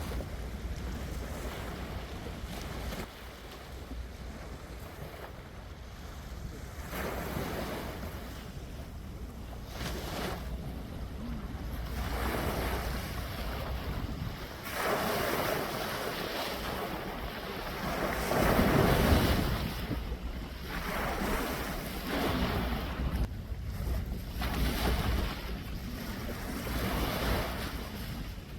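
Sea waves washing in, swelling every few seconds, with wind buffeting the microphone.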